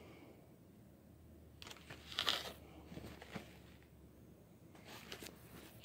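Faint handling noise of a cardboard box being turned over in the hand: a few short rustles and scrapes, the loudest about two seconds in, with smaller ones around three and five seconds.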